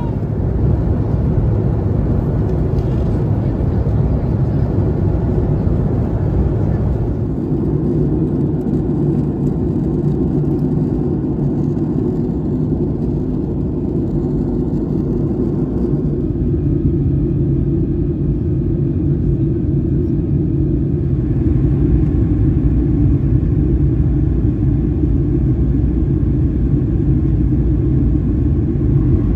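Steady low rumble of a Boeing 737-900ER in flight, heard inside the cabin: engine and airflow noise during the descent. Its tone shifts slightly about seven and again about sixteen seconds in.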